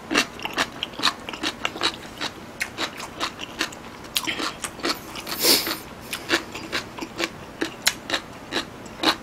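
Close-miked chewing of a mouthful of food: wet clicks and crunches several times a second, with a brief louder rush of noise about five and a half seconds in.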